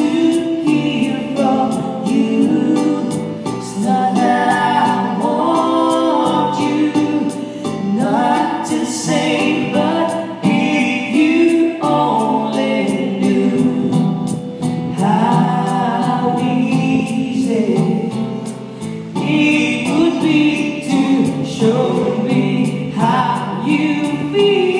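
A woman sings a slow melody into a microphone, accompanied by a strummed acoustic guitar.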